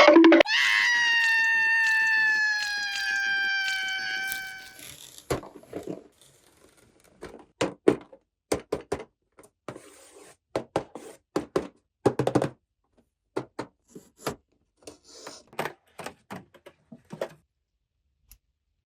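A held electronic tone that slowly falls in pitch for about five seconds, then a long run of separate clicks and knocks: plastic toy pieces being handled and set down.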